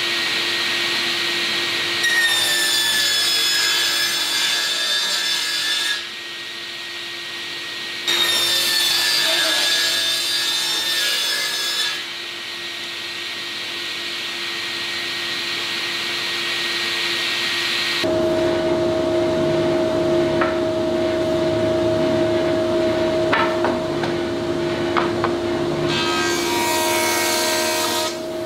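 Sliding panel table saw running, making two crosscuts through thick hardwood boards, each lasting about four seconds, with the blade's pitch dipping slightly under load. About two-thirds of the way through, this gives way to a jointer running, and near the end a board is fed across its cutterhead in one pass.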